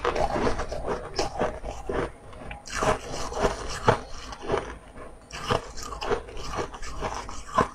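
Pieces of ice being bitten and chewed close to the microphone: a run of loud, irregular crunches.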